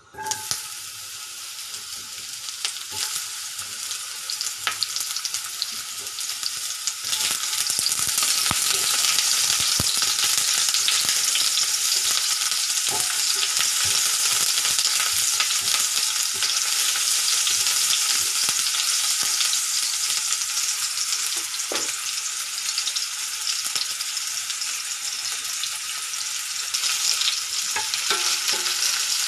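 Food sizzling as it fries in hot oil in a pan, with a stirring utensil knocking against the pan now and then. The sizzle starts abruptly and grows louder about seven seconds in.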